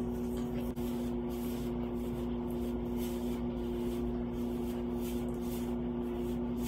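A steady two-note hum over an even hiss, holding level throughout.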